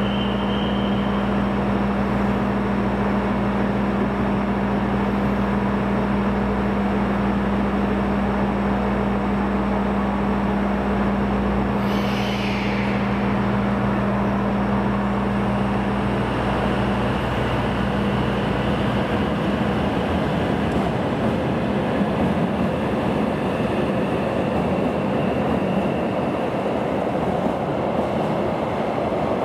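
A train at a station platform: a steady machine hum with low tones, and a brief high squeal about twelve seconds in. Past the middle the hum fades into a broader, even rushing noise.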